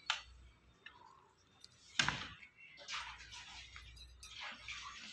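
Steel utensils being washed by hand: a light clink near the start and a sharp metal clatter about two seconds in, with short bursts of scrubbing and rinsing water in between.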